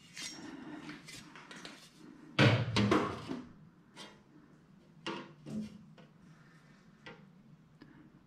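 A framing square being shifted and set down against a thin aluminum sheet panel: scattered light knocks and scrapes, with a louder clatter of several knocks about two and a half seconds in.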